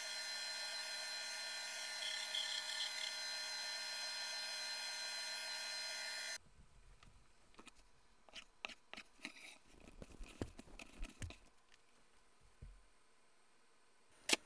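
KitchenAid stand mixer motor running steadily with its pasta roller attachment turning, a steady machine whine that cuts off abruptly about six seconds in. Then a chef's knife chops through rolled fresh pasta dough on a wooden cutting board: a series of knocks and taps, with one sharp click near the end.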